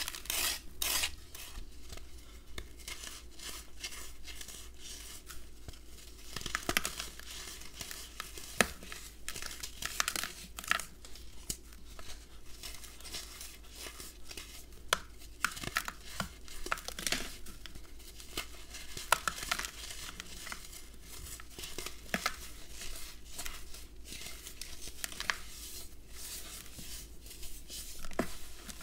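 A serrated plastic knife scraping a compressed red sand block in a few regular strokes, about two a second, which stop about a second in. Then hands break up and crumble the red sand, with irregular crunches, crackles and gritty rustling.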